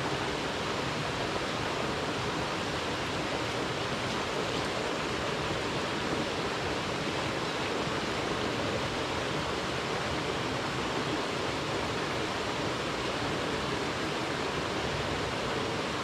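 Mountain stream flowing steadily, an even, unbroken rush of water.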